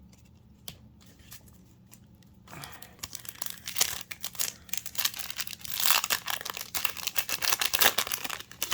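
A foil trading-card booster pack is torn open and its wrapper crinkled. The dense crackling starts about two and a half seconds in after a quiet stretch, and is loudest in its second half.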